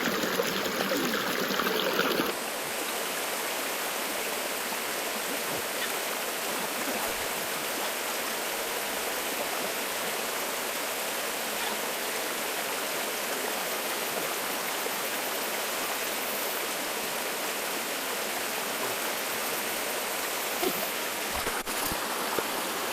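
Valley stream water rushing in a steady, even wash. It is louder for the first two seconds, then drops abruptly to a constant level.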